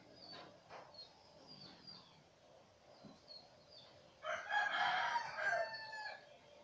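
A rooster crows once, a loud call of about two seconds starting a little past the middle. Faint short high chirps of small birds repeat throughout.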